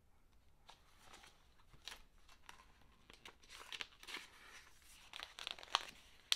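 Paper rustling and crinkling as the pages of a picture book are handled and turned: a string of soft crackles with a couple of sharper clicks near the end.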